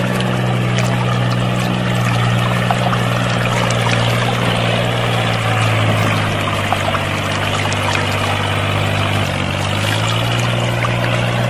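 Water pouring steadily from the two outlet pipes of a miniature belt-driven water pump and splashing into a muddy puddle, over the steady low hum of the small motor driving it.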